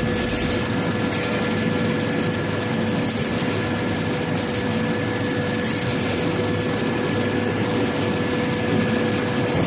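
Hot-rolling helix screw blade forming machine running, its chuck turning as it winds hot steel strip into a spiral flight. It makes a steady mechanical hum with two constant whining tones, one middling and one higher.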